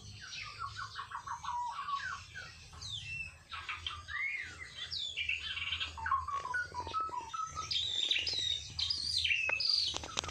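White-rumped shamas singing a continuous, varied song of clear whistles, rapid trills and sliding notes, with a few sharp clicks near the end.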